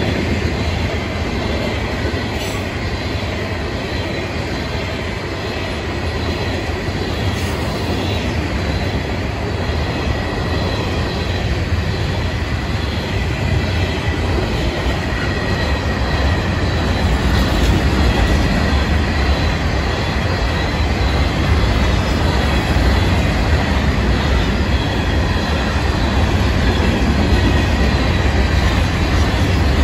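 Florida East Coast Railway mixed freight cars rolling past close by: a loud, steady rumble of steel wheels on the rails, with a thin, steady high squeal from the wheels running through it.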